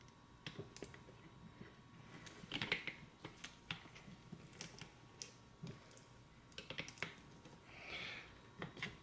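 Faint, irregular clicks and taps of small parts being handled and fitted onto an RC crawler's metal chassis, with a couple of brief rustles.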